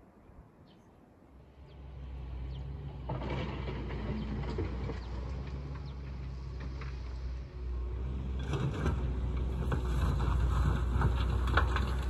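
A motor engine running with a steady low hum that starts about two seconds in. A rattling, noisy layer sits over the hum, and the sound grows louder toward the end.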